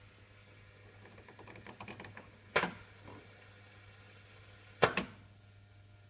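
A quick run of small clicks, then two sharp pops a little over two seconds apart, over a steady low mains hum from an old wood-cabinet tube radio with no station playing.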